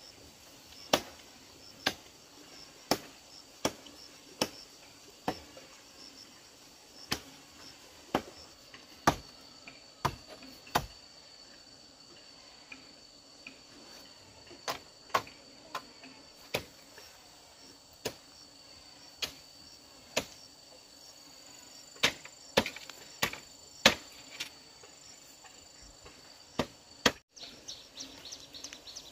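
Repeated chopping strikes of a hand tool into ground and vegetation, roughly one a second in runs with short pauses, as grass and brush are cleared or soil is dug. Insects chirr steadily and high-pitched behind the strikes.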